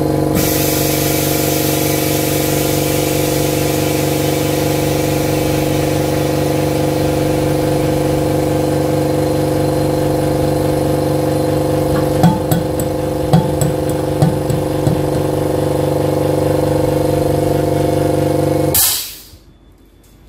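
Air compressor supplying a bubble-remover pressure chamber, running with a steady motor hum and a hiss of air. There are a few light knocks a little past the middle, and the compressor shuts off suddenly near the end.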